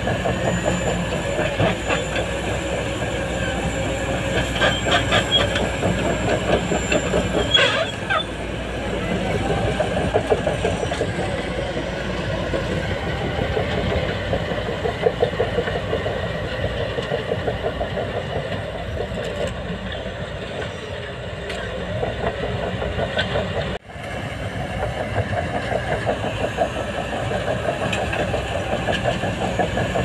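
Heavy diesel engine running steadily with a fast, even pulsing beat, typical of a dump truck or wheel loader at work. The sound briefly cuts out a few seconds before the end, then resumes.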